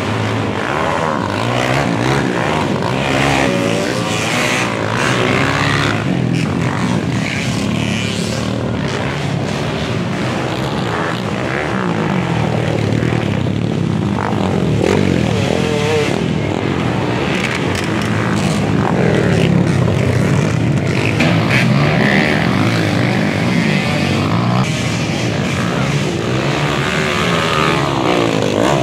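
Dirt bike engines revving up and down again and again as the bikes ride past on a dirt track, the pitch rising and falling throughout.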